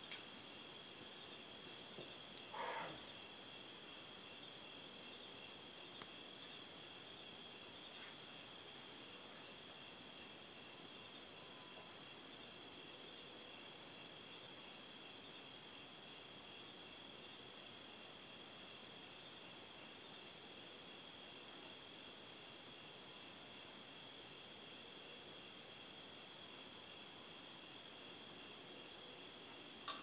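Night chorus of crickets, a steady high chirring with a fast pulsing texture. Twice a louder, higher-pitched buzz swells up over about two seconds and cuts off sharply, and a short lower sound comes about two and a half seconds in.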